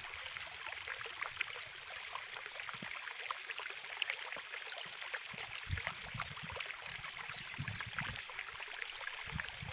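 Water running in a stream, a steady babbling hiss, with a few soft low thuds in the middle.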